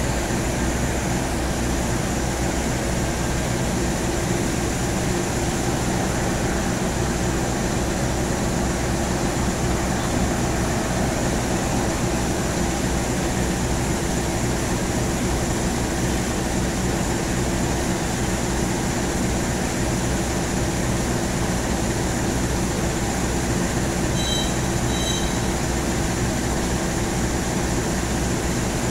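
Diesel-electric locomotive of KAI's CC 206 class idling at a standstill: a steady, even engine drone that does not rise or fall.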